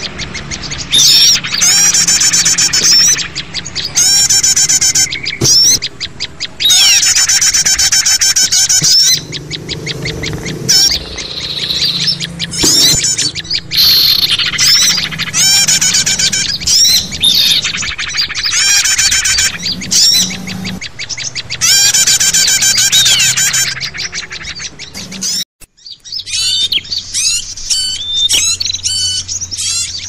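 Many small songbirds chirping, trilling and chattering over one another as a bird-lure (pikat) recording, in loud bursts of a second or two with short lulls between them. About 25 seconds in the sound cuts out for a moment, then the calls carry on more softly.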